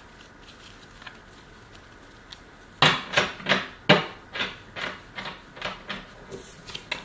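Near silence for the first few seconds, then a quick run of clacks and knocks from small hard objects being handled and set down on a wooden dresser top, about three a second.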